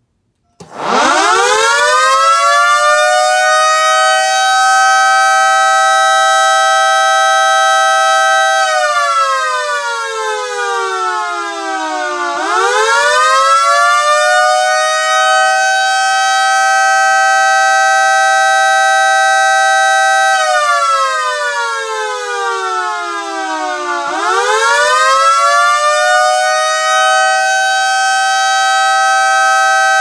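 Secomak GP3 motor-driven air raid siren starting up about half a second in and climbing to a loud, steady chord. It winds down and climbs back up twice, sinking for about three seconds each time, as its power is cycled on and off in a rising and falling wail like the attack signal.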